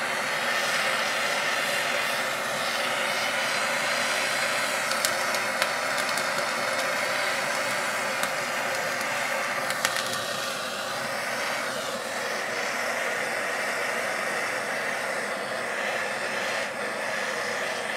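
Handheld kitchen blowtorch flame hissing steadily as it caramelizes a sugar topping on custard. There are a few faint ticks, and the tone shifts slightly about ten seconds in.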